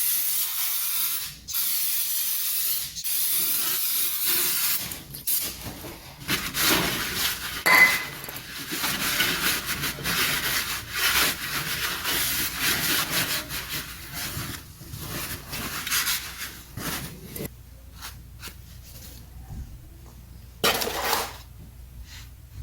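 Aerosol brake cleaner spraying onto the brake in long hissing bursts with short breaks between them, then rubbing and clicking of hands and parts, with one more short spray near the end.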